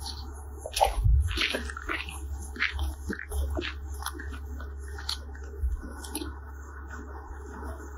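Scattered crunching and scuffing on a gravel bank over a steady low rumble, with the loudest crunch about a second in.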